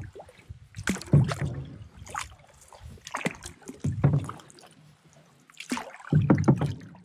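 A canoe being paddled along a creek: paddle strokes splash and knock against the hull in uneven strokes, roughly one a second.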